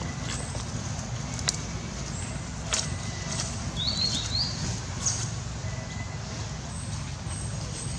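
Outdoor ambience on a forest floor: a steady low rumble, a couple of sharp clicks, and a short run of quick high chirps about four seconds in.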